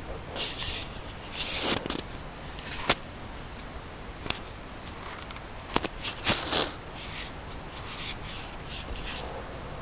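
Scattered rustling and scraping of clothing and hands handling a phone and a small handheld device, with a few sharp clicks around three and six seconds in.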